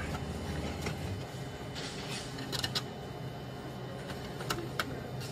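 Printer inside a self-service print station running, with a low steady hum and scattered soft clicks and ticks as it works on the print.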